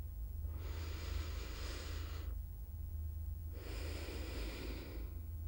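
A person breathing slowly and audibly: two long breaths of about two seconds each, with a pause between them, over a low steady hum.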